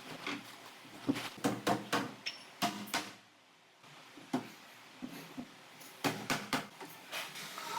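Irregular knocks and clatter of wooden wardrobe parts being handled, with a short quiet pause about three seconds in.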